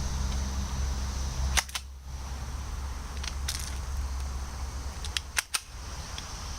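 Spring-powered Colt M1911A1 airsoft pistol being cocked and fired with .12 BBs: a series of sharp snapping clicks, a single one early, then a pair, then three in quick succession near the end, over a steady low rumble.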